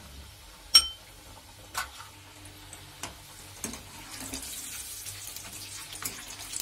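Potato snacks deep-frying in hot oil with a bubbling sizzle that swells from about four seconds in as a wire skimmer turns them. A few sharp metal clinks sound against the kadai, the loudest a ringing clink about a second in.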